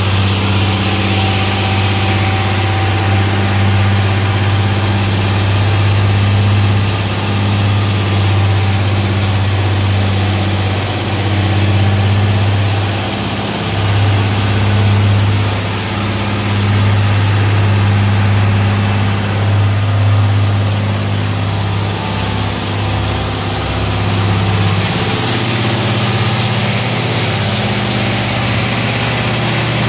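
A pair of FPT NEF 450 marine diesel engines running steadily, heard close up inside the boat's engine compartment. The sound is a loud, even, deep hum, with small shifts in tone about 13 and 25 seconds in.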